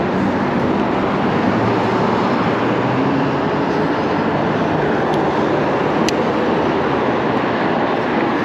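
Steady rush of busy road traffic, heard from a moving e-bike, an even unbroken noise with a couple of faint ticks in the middle.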